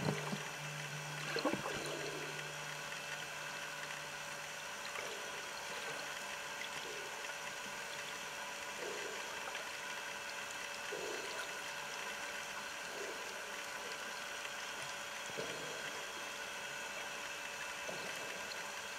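Underwater ambience heard through a camera housing: a steady hiss, with a low hum in the first few seconds that fades out and faint soft low sounds every couple of seconds.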